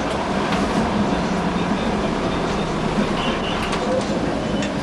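A city tram running along street track, heard from inside at the front of the car: a steady rumble of steel wheels on the rails with a low motor hum and a few faint clicks.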